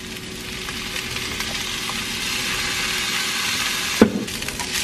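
Rice sizzling in a hot frying pan as hot sauce is poured in, a steady sizzle that grows louder. A sharp knock about four seconds in.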